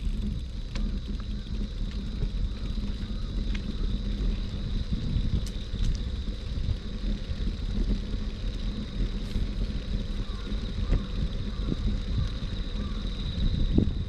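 Busy city street ambience with a steady low rumble, like passing traffic, and a faint constant high-pitched whine; it swells briefly near the end.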